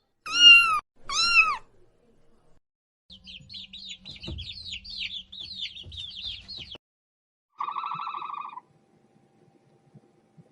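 A domestic cat meows twice in quick succession. After a pause comes about four seconds of rapid, high chirping calls, then one short buzzy call.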